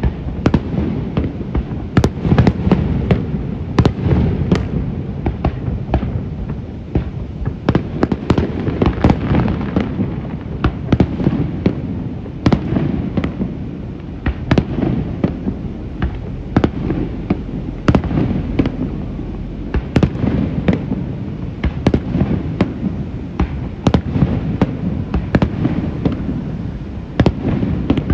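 Fireworks display: aerial shells bursting in frequent, irregular sharp bangs, over a continuous low rumble.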